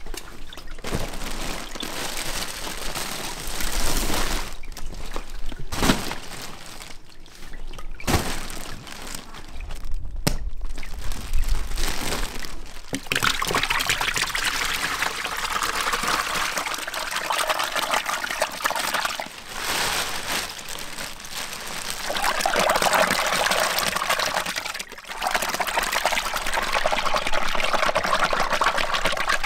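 Water pouring and trickling, with a few sharp knocks of handling in the first half. About halfway through it becomes a steady stream of running water.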